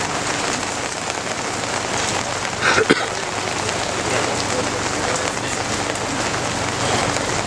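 Steady heavy rain falling and pattering on surfaces during a thunderstorm, with one brief louder sound about three seconds in.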